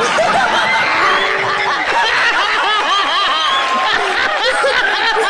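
Many people laughing hard together: a man's loud, repeated laughter over an audience laughing, with some clapping.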